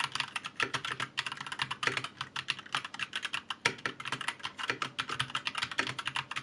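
Fast typing on an Asus ROG Falchion Ace compact mechanical keyboard, with ROG NX Red linear switches, doubleshot PBT keycaps and factory-lubricated stabilizers: a rapid, unbroken run of key clacks, many strokes a second.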